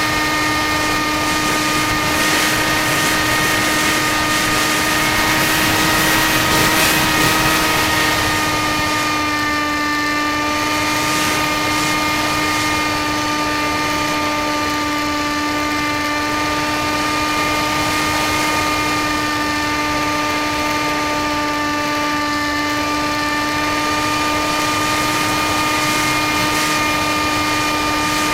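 HawkSky electric RC plane's motor and propeller whining steadily in flight, the pitch dipping slightly about eight seconds in.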